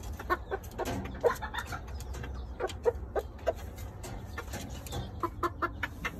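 Chickens clucking: a quick string of short clucks and calls.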